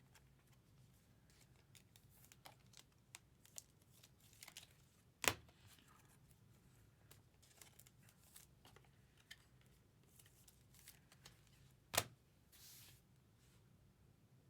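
Faint handling of trading cards and their packaging: scattered soft rustles and light ticks, with two sharper clicks about five and twelve seconds in.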